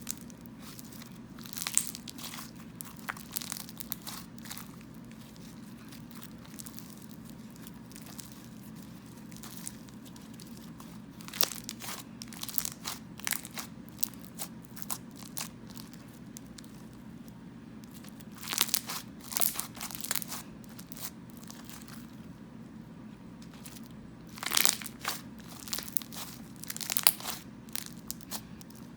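Slime being squished and stretched by hand, making short bursts of crackling, clicking sounds that come in four or so spells, over a steady low hum.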